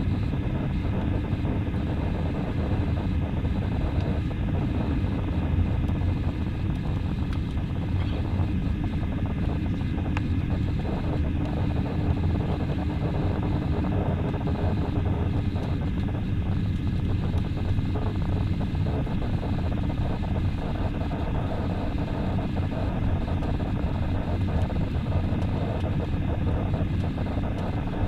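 Airbus A320 airliner in flight: a steady low rumble of jet engines and rushing air, unchanging throughout.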